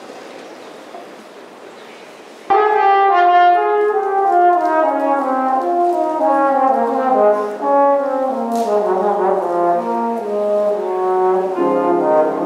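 Faint room noise, then about two and a half seconds in, brass ensemble music starts abruptly at full volume: several brass instruments playing a passage of overlapping, stepping notes that move mostly downward.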